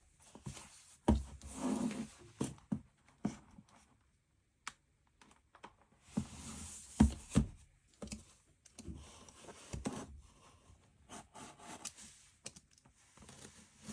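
Hands handling merchandise packaging: irregular taps and knocks with short bursts of rustling and scraping as items are picked up and opened.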